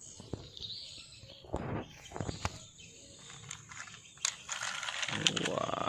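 Clicks and knocks of a die-cast metal toy truck being handled and pulled back on a concrete ledge, with a quick run of clicks and then a rising whine near the end.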